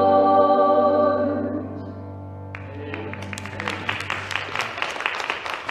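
The song's final held instrumental chord dies away over the first two and a half seconds, then scattered hand-clapping from a small audience starts and carries on.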